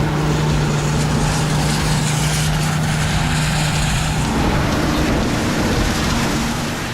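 AGCO Challenger MT975B tractor engine running: a steady mechanical rumble with a droning tone that drops away about four seconds in.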